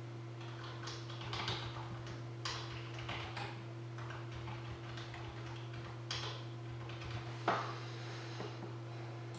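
Scattered light clicks and taps of a computer mouse and keyboard being used to set up a randomizer, over a steady low electrical hum.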